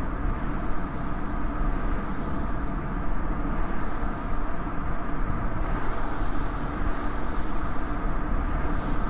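Toyota Yaris driving along a road, its tyre and road noise heard through a microphone mounted outside on the rear hatch: a steady rumble, with a short hiss rising over it every second or two.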